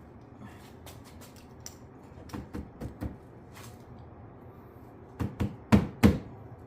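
Plastic clicks and knocks from a tail light housing being pushed and tapped into its clips on a car body. First comes a scatter of light clicks, then four sharper knocks about five seconds in, the last two loudest.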